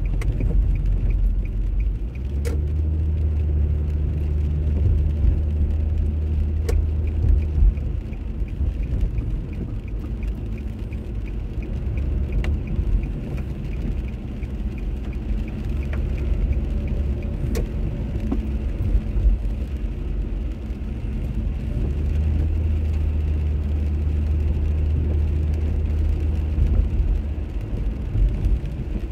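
Car cabin noise while driving on a rain-soaked road: a steady rumble of engine and tyres on wet tarmac, with a deeper drone that comes in twice. A few sharp clicks sound through it.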